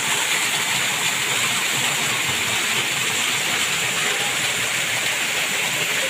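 Steady rush of water from a small waterfall cascading down rock, even and unbroken.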